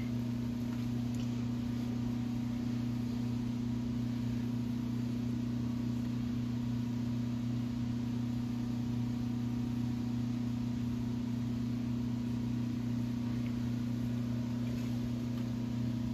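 Steady low electrical hum of machine-shop equipment, unchanging throughout, with the lathe spindle stopped.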